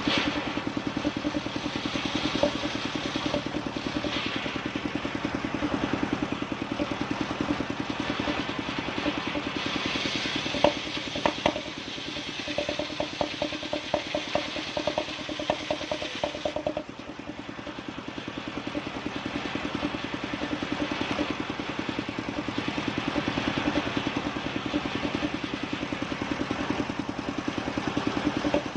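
Engine-powered wood sawing machine running steadily with a regular pulsing beat. A run of rapid clattering comes about a third of the way in, and the level drops at about two-thirds through.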